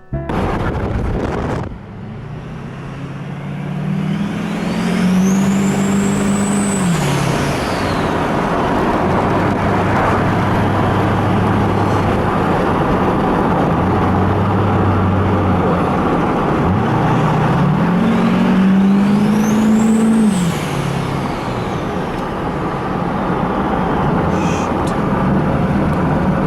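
Turbocharged Duramax diesel pickup driving, with a steady wash of road and wind noise. Twice the engine pulls harder, once a few seconds in and again about two-thirds through. Each time its pitch climbs along with a rising turbo whistle, and the whistle drops away as the throttle is lifted.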